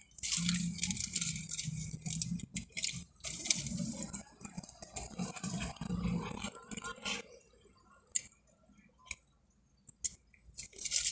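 Close eating sounds: chewing and wet mouth noises with small crackles, as grilled chicken and a flour tortilla are torn apart by hand and eaten. It goes much quieter about seven seconds in, leaving only a few soft clicks.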